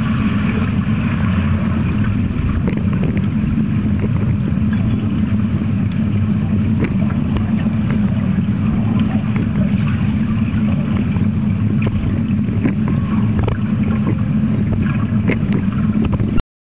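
Steady, muffled low rumble of underwater pool noise picked up by a Pentax Optio W30's built-in microphone, with faint scattered clicks and crackles. It cuts off suddenly near the end.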